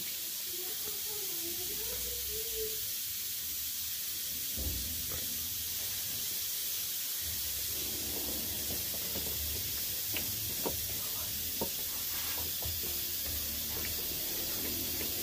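Steady hiss with light metallic clicks and taps in the second half, as the aluminium pressure cooker's lid is fitted on and its locking handle worked.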